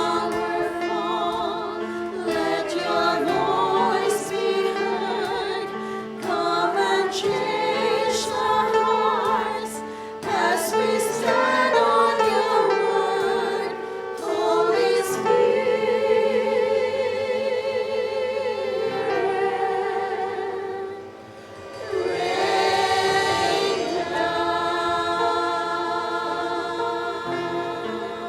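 A church choir singing a worship song with accompaniment, long held notes with a clear vibrato, briefly fading about two-thirds of the way through before swelling again.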